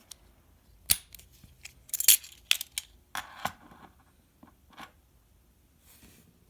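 Metallic clicks and short clatters from handling the freshly opened Master Lock padlock and the lock picks, loudest about two seconds in, then dying away.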